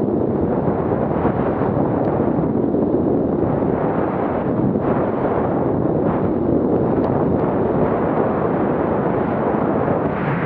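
Steady rushing wind noise buffeting the camera's microphone while skiing downhill, mixed with the hiss of skis sliding over groomed snow.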